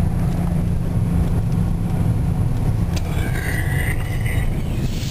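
Car engine and road noise heard from inside the cabin while driving: a steady low drone. About three seconds in, a brief high-pitched wavering sound rises over it.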